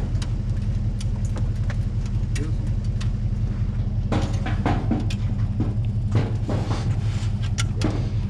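Pickup truck engine idling steadily, with scattered knocks and clicks as hounds are handled at the truck's dog box.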